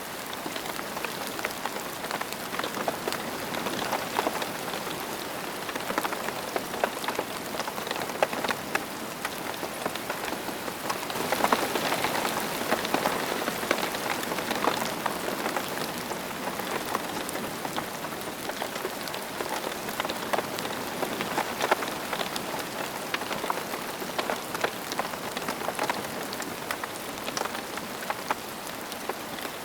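Steady rain falling on a surface, with many separate drop hits heard through the even hiss of the downpour. It grows a little heavier for a couple of seconds a bit before the middle.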